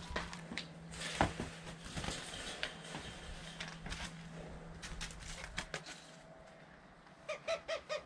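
Doves fluttering: scattered wing flaps and knocks over a low steady hum that fades about three-quarters of the way through, then a quick run of about five short pitched calls near the end.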